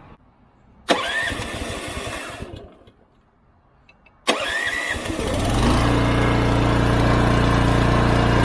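Pressure washer spraying in two bursts: the trigger is squeezed about a second in and let go about a second and a half later, then squeezed again past four seconds, after which the machine's engine comes up to a steady hum under the spray.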